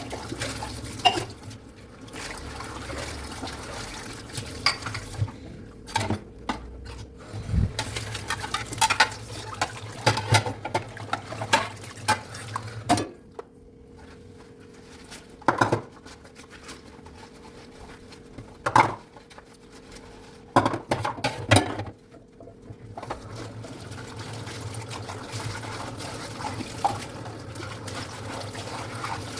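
Dishes washed by hand at a sink: a tap runs steadily while dishes and cutlery clink and knock against each other. The running water stops for several seconds in the middle, where only scattered clatters are heard, then runs again near the end.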